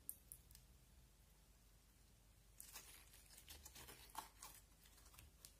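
Faint sticky clicks and crackles of slime being folded and squeezed by hand. One click comes right at the start, and a run of them comes from about halfway through until just before the end.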